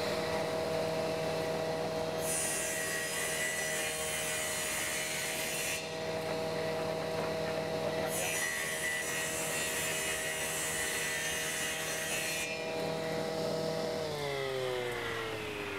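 Table saw running at speed with a steady hum, cutting through wood twice, each cut a few seconds of loud hissing as the blade goes through the strip. About fourteen seconds in, the saw is switched off and its hum falls in pitch as the blade spins down.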